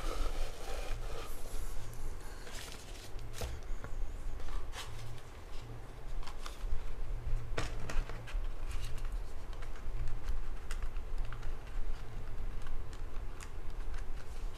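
Irregular light clicks and taps from a smartphone being handled and tapped by hand, over a steady low hum.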